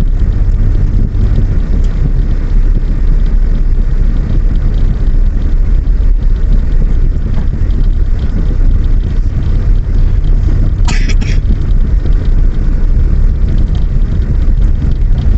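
Steady low rumble of a moving vehicle on the road, with a brief sharp double sound about eleven seconds in.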